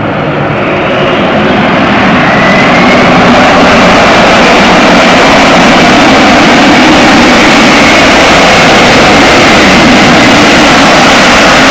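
Jet engine noise from a Boeing 747-400 freighter's four engines as it rolls along the runway after landing. It grows louder over the first two or three seconds, then holds steady and loud with a faint whine over the rumble.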